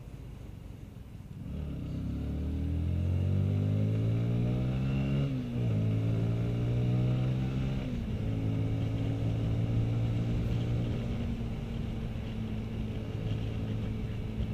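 Honda CBR sport bike's engine accelerating from low speed, its pitch rising from about a second and a half in. The pitch drops at an upshift about five seconds in and again near eight seconds, then the engine runs steadily at cruising speed.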